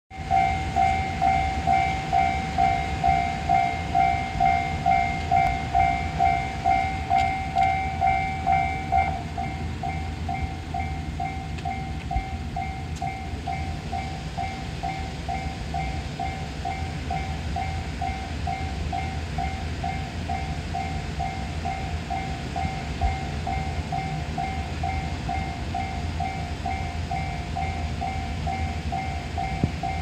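Japanese railroad crossing's electronic warning bell ringing its 'kan-kan' alarm, about two strokes a second. It turns noticeably quieter about nine seconds in and keeps ringing at the lower volume.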